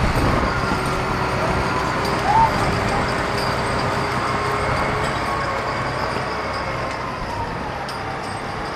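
Large wheel loader's engine running steadily, fading slowly as the machine drives away. A short squeal comes about two and a half seconds in.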